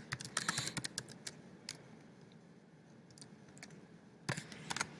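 Typing on a computer keyboard: a quick run of keystrokes in the first second or two, a few scattered ones a little later, and a short cluster of clicks near the end.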